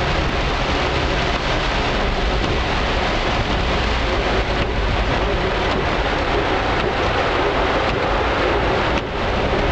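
Heavy rain drumming on a moving car's roof and windshield, heard from inside the cabin, mixed with the car running and its tyres on the wet road: a steady, loud wash of noise.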